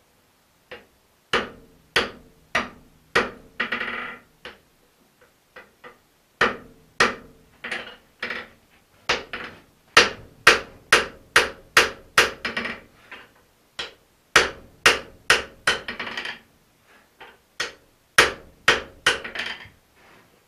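Blacksmith's hammer striking a red-hot steel axe head on an anvil, in runs of several blows about two a second with short pauses between, the anvil ringing after some strikes; this is the forging of the axe to its final shape.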